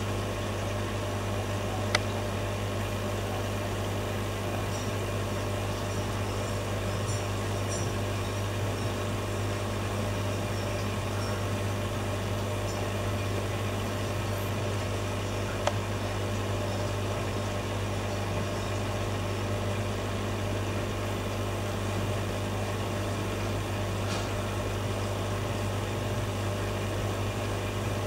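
Steady low electrical hum of aquarium equipment, broken twice by a single sharp snap: pistol shrimp snaps, about 2 seconds in and again about 16 seconds in, the first the louder.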